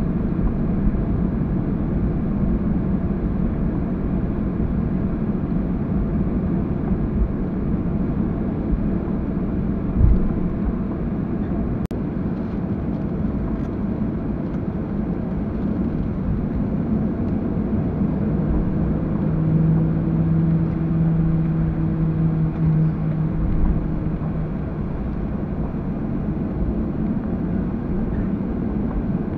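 Steady rumble of an airliner cabin as the jet taxis on the ground after landing, engines at idle. A single thump comes about ten seconds in, and a low hum joins for a few seconds past the middle.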